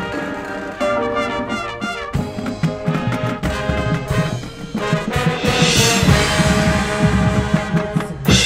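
High school marching band playing its field show: a brass section of trumpets and trombones playing loud chords and moving lines over percussion.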